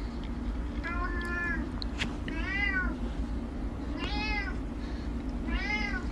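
Domestic cat meowing repeatedly: four meows about a second and a half apart, each rising then falling in pitch. A steady low hum runs underneath, and a single click sounds about two seconds in.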